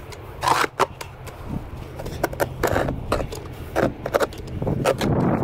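Snow shovel scraping and scooping snow in a series of short, irregular strokes, over a steady low hum.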